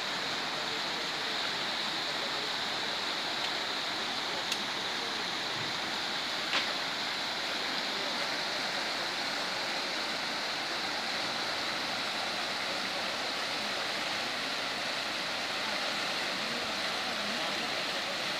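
Fast-flowing floodwater rushing and churning around tree trunks, a steady rushing noise, with two faint clicks a few seconds in.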